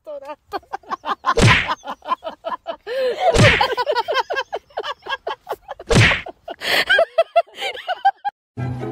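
A dog scrambling in and out of a plastic pet carrier: rapid clattering and knocking against the crate and its wire grille door, with three heavier thumps spread through it.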